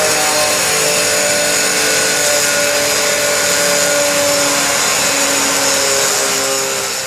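Angle grinder with a RECA diaflex RONDO diamond cutting disc cutting a curve into a tile: a steady grinding hiss over the motor's whine, its pitch wandering slightly as the disc is tilted and loaded. It fades out near the end.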